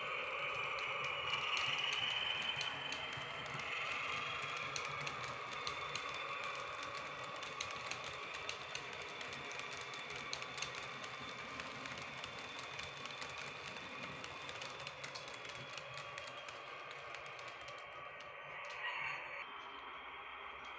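H0 scale model passenger train running along the track: a steady motor whine with a rapid, irregular clicking of wheels on the rails, a little louder about two seconds in and fading slightly as it goes. A brief louder burst near the end.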